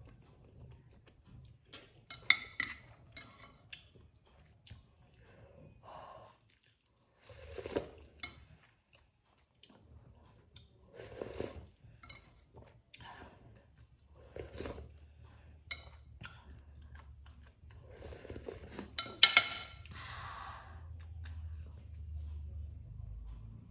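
Close-up eating sounds: slurping and chewing instant noodles, with a fork and spoon clicking against the plate. The loudest moment, about three quarters of the way through, is a crisp crunching bite into a breaded fried stick.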